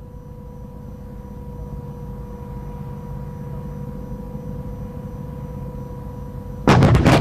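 A low steady rumble with a faint steady hum. About 6.7 s in, a battery of artillery howitzers fires a volley: several loud, sharp reports close together, echoing away.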